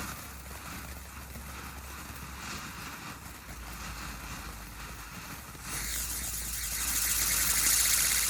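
Spinning firework fountain burning with a hissing spray of sparks, faint at first, then rising sharply to a loud hiss about six seconds in.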